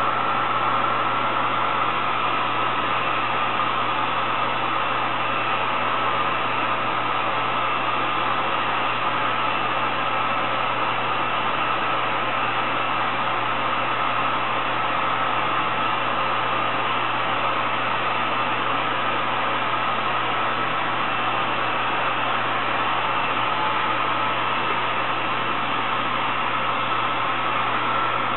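Steady background hiss and hum with a faint constant high whine, unchanging throughout, like a running fan or room appliance; nothing else stands out.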